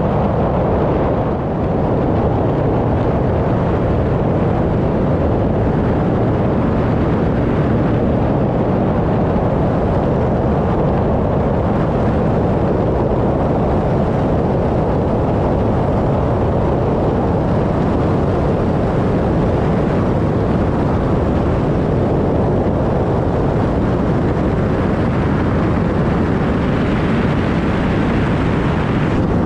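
Cockpit noise of a Cessna 185 floatplane: its piston engine and propeller running steadily and loudly, with a brighter hiss building near the end.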